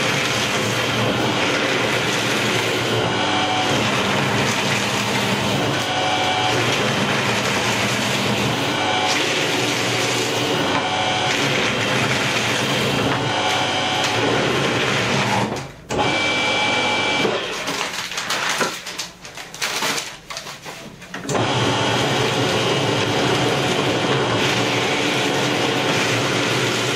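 EBA 5141 heavy-duty P5 security paper shredder running under load, cutting through stacks of A4 sheets fed in one batch after another. The running sound drops and breaks up for a few seconds about two-thirds of the way through, then comes back at full strength.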